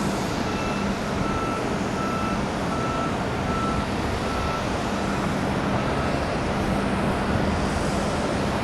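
Backup alarm on heavy construction machinery, beeping about every 0.6 seconds before stopping about halfway through, over a steady engine rumble.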